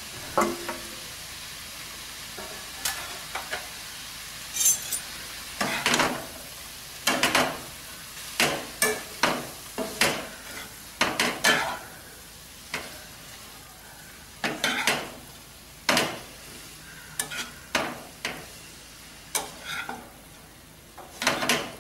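Two steel ladles tossing noodles and vegetables in a kadai, scraping and clanking against the pan in short, irregular strokes, over a steady sizzle of frying.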